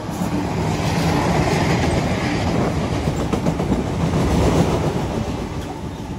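Cement tank wagons of a freight train rolling past close by, their wheels clattering over the track with a dense clickety-clack, easing off near the end.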